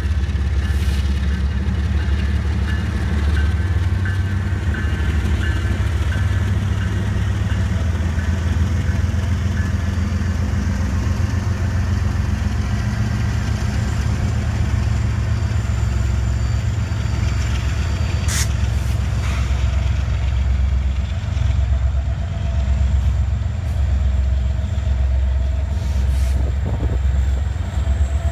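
Several Union Pacific diesel-electric freight locomotives passing close by under power, their engines running with a loud, steady low rumble. A single sharp click comes about two-thirds of the way through.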